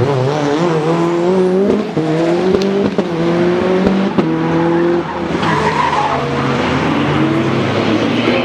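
A modified Lancia Delta HF Integrale's turbocharged four-cylinder engine accelerating hard, its pitch climbing and then dropping at each upshift, about four times. A rougher, noisier stretch about five seconds in fits tyres sliding before the engine pulls again.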